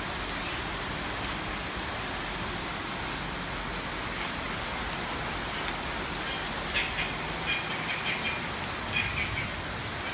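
Steady rain falling, an even hiss. Short high-pitched sounds come in several times in the second half.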